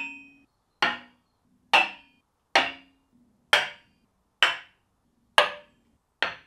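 A hammer knocking on the aluminium extrusion frame of a home-built CNC mill about once a second, seven strikes, each followed by a short metallic ring. It is a tap test of how much the frame rings, and it still rings a lot even with the sand-and-epoxy-granite fill meant to damp it.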